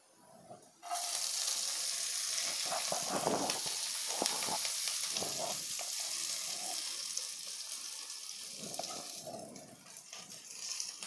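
Chopped onion, green chilli and spring onion hit hot oil with frying garlic in a non-stick kadai. A loud sizzle starts suddenly about a second in, while a silicone spatula stirs the pan. The sizzle dies down near the end.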